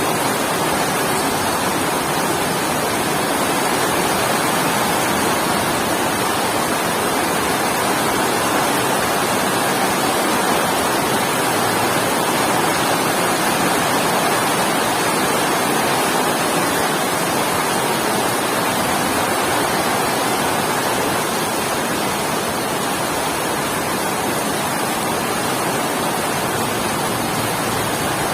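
Heavy rain falling steadily as a dense, even hiss, with no thunder.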